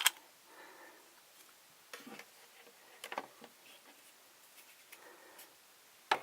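Faint, scattered clicks and taps of plastic toy parts being handled, with a sharper click near the end.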